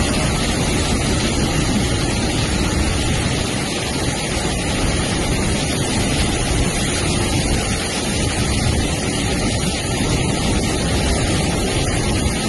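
Freight train running through floodwater that covers the track, a loud, steady rush of churned-up water and spray.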